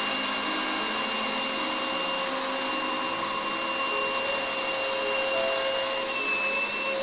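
Vacuum cleaner running steadily, a constant loud rushing hiss with a high whine.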